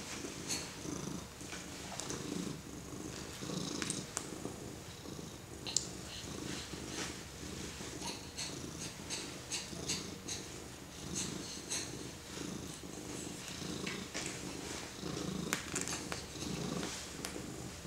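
Long-haired ginger cat purring steadily while being petted, the low purr swelling and fading with each breath about once a second. Faint light clicks and rustles come and go over it.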